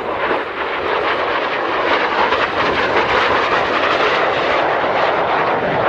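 Gloster Meteor T.7 jet passing close overhead, the rushing noise of its twin Rolls-Royce Derwent turbojets growing louder over the first two seconds and then holding steady.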